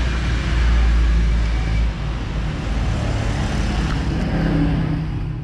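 Steady background noise with a deep rumble, heaviest in the first two seconds.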